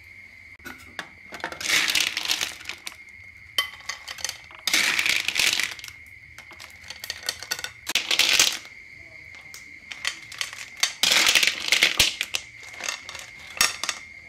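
Metal spatula scraping a wok and cooked blood cockles in their shells clattering as they are scooped out onto a plate, in several bursts a few seconds apart. A steady high insect trill runs underneath.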